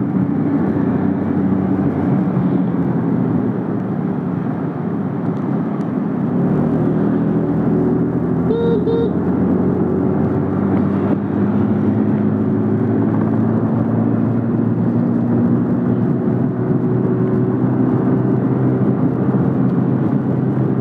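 Petrol scooter engine running under way, with road and wind noise. Its pitch climbs gently for several seconds as the scooter picks up speed, then holds steady. Two short high blips come about nine seconds in.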